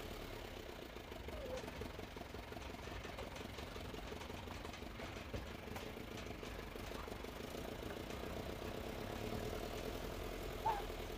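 A small vehicle engine running steadily at low revs, heard faintly, with a short high chirp near the end.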